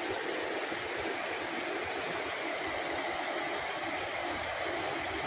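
Steady rushing of falling water from a waterfall, an even hiss and rumble that holds without a break.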